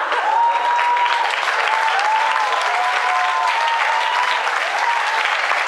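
Audience applauding: dense, steady hand clapping throughout.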